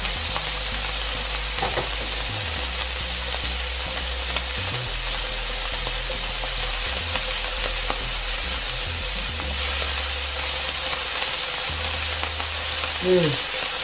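Strips of Scotch fillet steak sizzling steadily in oil in an electric frying pan, with occasional clicks and scrapes as they are turned with tongs. A brief pitched sound that falls in pitch near the end is the loudest moment.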